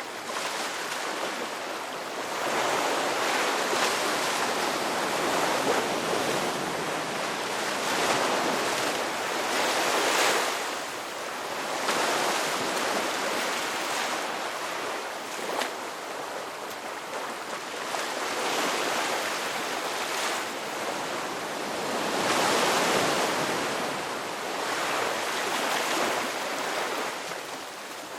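Sea waves washing onto the shore: a continuous hiss of surf that swells and falls back every few seconds.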